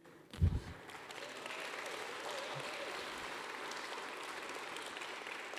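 Audience applauding steadily, beginning about half a second in just after a short low thump.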